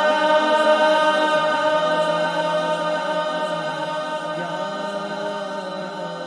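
Unaccompanied male voice sustaining a long devotional naat note, wavering at first and then held steadier, with other voices joining in a chant-like drone. It is heard through a heavy echo effect and slowly fades.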